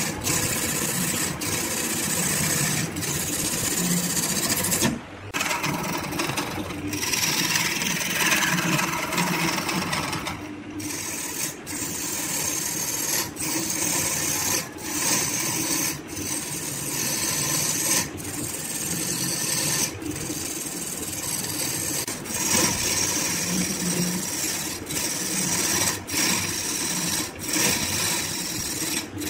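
Wood lathe spinning a wood-and-resin blank while a hand-held turning tool cuts it: a steady scraping hiss of the cut over the lathe's running motor. The cut breaks off briefly about every second and a half.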